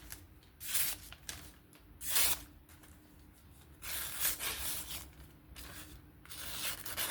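Freshly sharpened S30V Spyderco Kapara knife blade slicing through paper in four hissing strokes, the third the longest. The edge comes straight off the fixed-angle sharpener without stropping.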